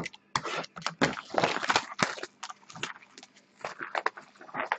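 Cardboard card boxes being handled and set down on a glass tabletop: a run of irregular knocks, taps and scrapes.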